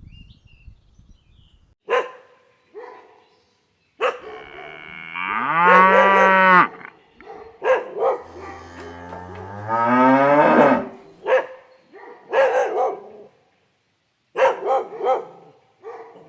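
Animal calls: two long, drawn-out calls that rise in pitch, followed by a series of short, sharp calls.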